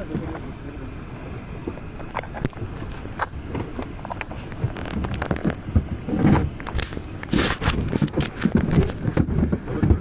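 Wind buffeting the microphone and water splashing against a moving inflatable boat, with irregular crackles and knocks that grow denser and louder in the second half.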